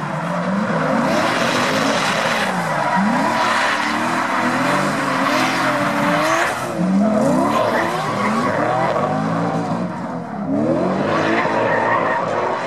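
Two drift cars sliding in tandem, one a Nissan Silvia. Their engines rev up and down over and over as the tyres screech and hiss continuously in the smoke.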